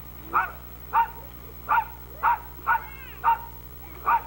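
A dog barking over and over in a steady rhythm, seven short barks spaced a little more than half a second apart.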